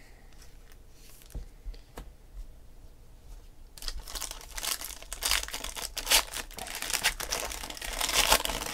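A sealed foil trading-card pack crinkling as it is handled and torn open, starting about four seconds in. Before that, only a few faint clicks.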